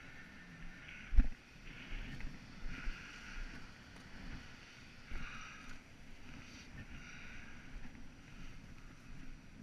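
Surf washing and surging around shoreline rocks, in repeated swells, with wind buffeting the microphone. A single sharp thump comes about a second in.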